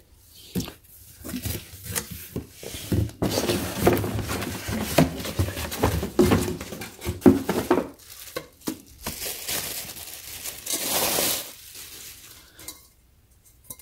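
Plastic wrap crinkling and cardboard packaging rustling while stainless steel pots and lids are lifted out of their box, with scattered knocks and clinks of metal.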